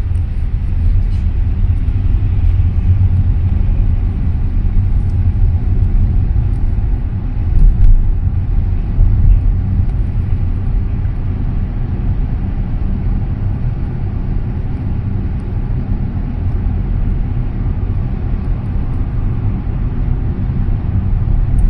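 Road and engine noise inside a moving car's cabin: a steady low rumble, with a brief louder swell about eight seconds in.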